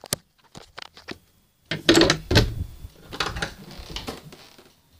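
Handling noise from a phone being carried while its holder moves out past hanging clothes: a few sharp clicks in the first second, then louder bumps and rustling around two seconds in that trail off.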